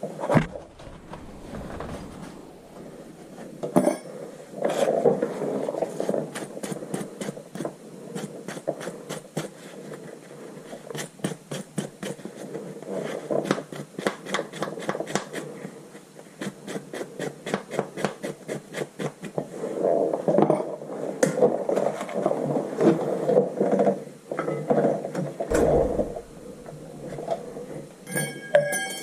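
Hand-tool work on a car's rear brake: a long run of evenly spaced clicks, about three a second, set among irregular knocks and clatter.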